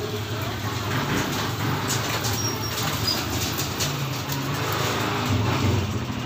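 A motor vehicle engine running at a steady idle, with a few faint snips of scissors cutting plastic.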